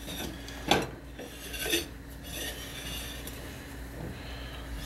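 A cloth towel rubbing around the rim of a ceramic bowl on a plate, with a sharp knock of the dishes a little under a second in and a lighter one near two seconds.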